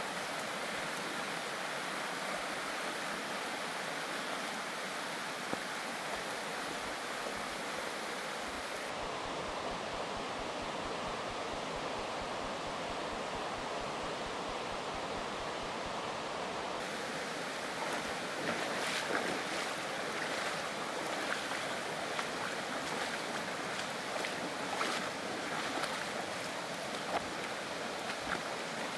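Steady rush of a shallow, rocky mountain creek running over stones, with brief splashes and gurgles standing out in the second half.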